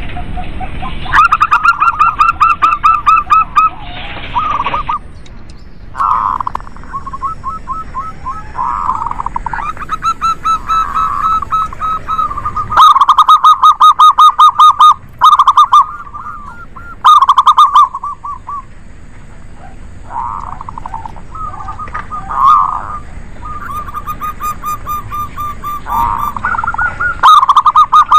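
Zebra doves (perkutut) cooing in lively, overlapping calls: rapid trains of short, mellow notes follow one another with brief pauses. The loudest calls fall around the middle.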